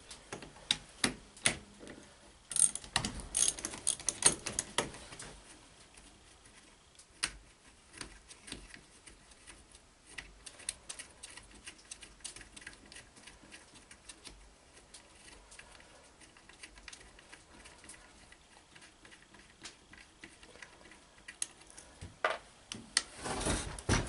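Ratchet wrench clicking in quick runs as the bolts holding the solenoid to a Chevy starter are backed out, with metal-on-metal clinks of tool and parts. The clicks are thickest a few seconds in and thin out later, and a louder scraping clatter comes near the end.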